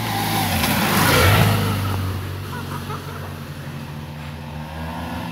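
A motorcycle passes close on a wet road, its engine and the hiss of its tyres swelling to a peak about a second in and then fading, while engine noise from more vehicles carries on steadily.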